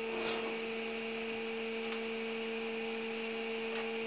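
Table saw motor running at steady speed with a constant hum, the blade spinning free without cutting. A short scrape of wood on the saw table comes a fraction of a second in.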